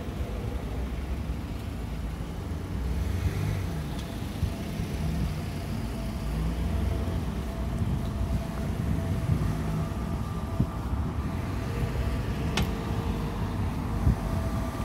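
City road traffic: cars running past with a steady low rumble, and a single sharp click near the end.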